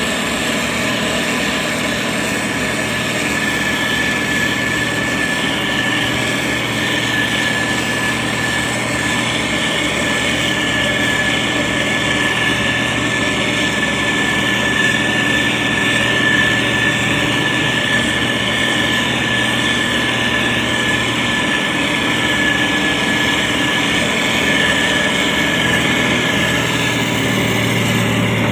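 SANY STG190C-8S motor grader's diesel engine running steadily under work, with a constant high-pitched whine above the engine note.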